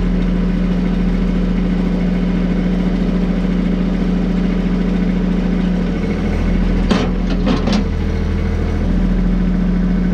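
Engine idling steadily. Its low note shifts briefly between about six and nine seconds in, with a few sharp metallic clanks around seven to eight seconds in.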